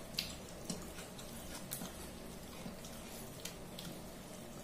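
Eating sounds from a meal of rice and fish curry eaten by hand: a few soft, wet mouth clicks and smacks of chewing, and fingers squishing rice on a steel plate, scattered over a faint low hum.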